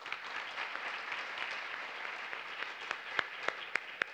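Audience applauding at the end of a talk. The dense applause thins out after about three seconds into a few scattered separate claps.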